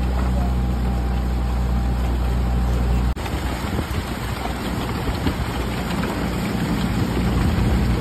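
Motorboat engine running steadily at low speed, a low hum under wind and water noise. About three seconds in the sound breaks off abruptly and the engine hum comes back fainter and rougher, growing steadier again near the end.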